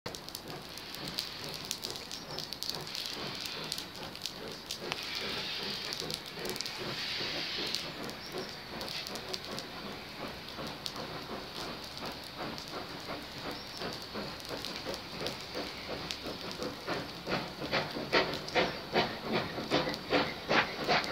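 Steam locomotive working along the line: a hiss of steam for the first several seconds, then its exhaust beats, a few a second, growing steadily louder toward the end.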